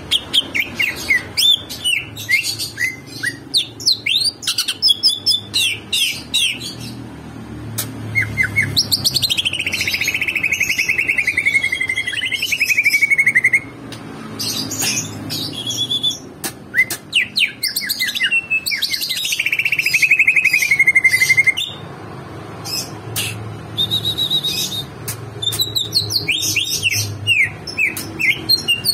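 A bird singing: rapid high chirps, with two long, fast-pulsed trills that fall steadily in pitch, each lasting about four seconds.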